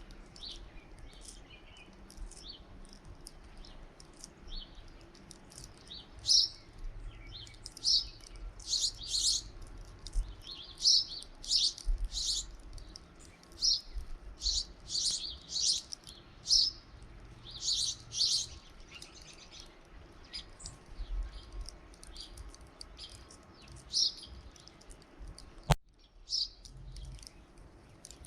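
Small birds at a feeder chirping over and over, short high calls coming in quick clusters. Near the end there is a single sharp click.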